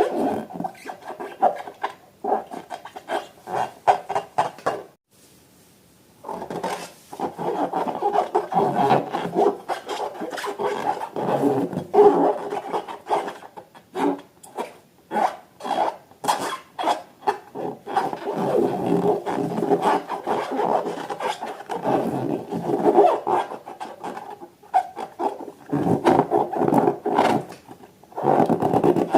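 Hands kneading and squeezing slime and balloons: a continuous rubbing, rasping sound with many small clicks, stopping briefly about five seconds in.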